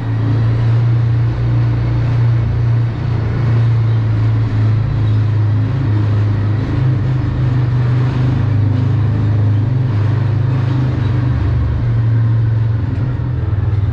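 Yamaha Rhino side-by-side's engine running steadily with a low, even drone as it drives along.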